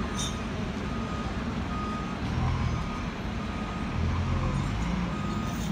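A vehicle's reversing alarm beeps a single steady tone about once a second, over the continuous low rumble of heavy machinery and a train alongside.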